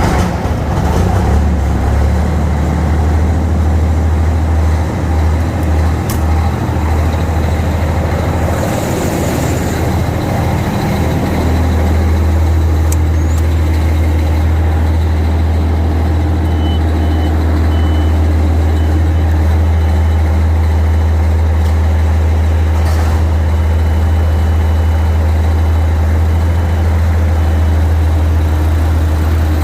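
Semi truck's diesel engine running steadily close by, its low drone evening out and growing steadier about eleven seconds in. A faint, high, intermittent beeping joins from about halfway through.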